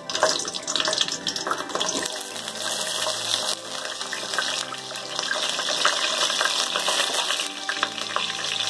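Slit whole brinjals (small eggplants) sizzling in hot oil in a kadai as they are laid in one by one: a steady hiss with many small crackles.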